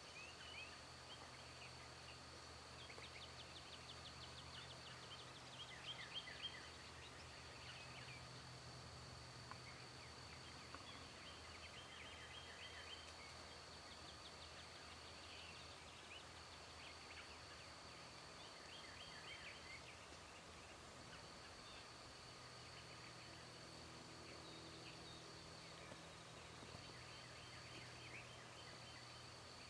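Faint wild turkey gobbling, with the loudest calls about six seconds in, among other bird calls. A high, thin steady note breaks off and resumes every couple of seconds, and a faint low hum sits beneath.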